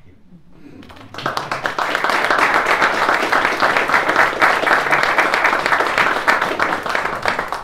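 A roomful of people applauding, a dense patter of many hands that breaks out about a second in and keeps going steadily.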